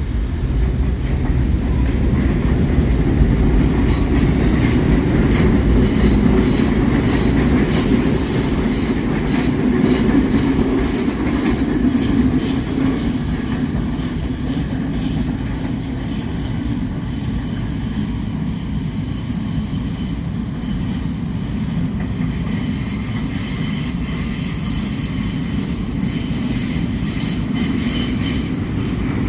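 New York City subway train running on the track: a steady rumble, with wheels squealing high and clicking over rail joints.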